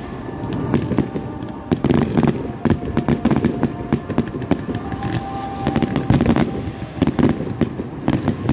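Fireworks display: aerial shells and ground cakes going off, with many bangs and crackles in quick succession, several a second, over a continuous rumble.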